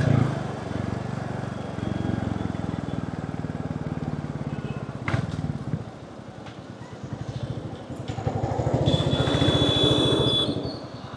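Motorcycle engine running under way, with a rapid, even pulse; it eases off about halfway through and picks up again near the end. A thin high steady tone sounds for about a second and a half near the end.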